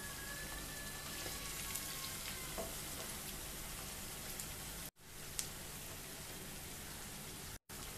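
Sliced onions, dried fish and chili powder frying in oil in a nonstick pan, a steady gentle sizzle on low heat, with a few light scrapes of a wooden spatula stirring. The sound drops out for an instant twice in the second half.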